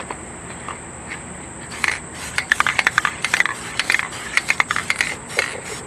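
Aerosol spray can of corrosion inhibitor sprayed in a quick run of short bursts, starting about two seconds in.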